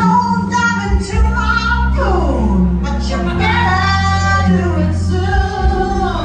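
A song plays loudly: a woman's singing voice over instrumental backing with a sustained bass. About two seconds in, the voice slides down in pitch.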